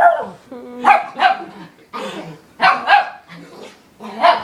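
Dog barking: about six short, sharp barks, several coming in quick pairs.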